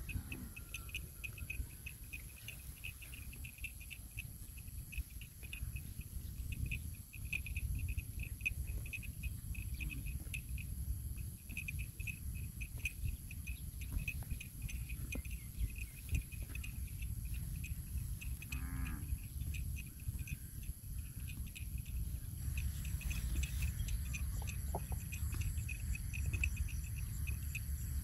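Insects chirping in a fast, regular pulse that runs on without a break, with a steady high whine above it and a low rumble underneath.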